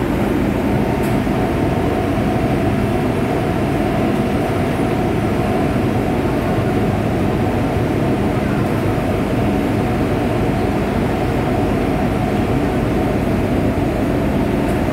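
MTR M-Train metro car standing at an underground platform with its doors open: a steady hum and rush from the train's equipment and the station, with a couple of low steady tones running through it.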